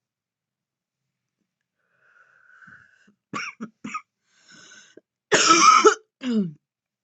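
A woman coughing from vaping: two short sharp coughs, then one loud, harsh, longer cough, ending with a short voiced cough that drops in pitch.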